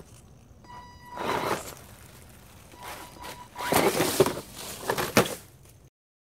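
Scale RC rock crawler on a trail: a faint steady high whine comes and goes from its electric motor, and louder rustling, scraping bursts sound over leaf litter and rock, loudest about four seconds in. The sound cuts off abruptly near the end.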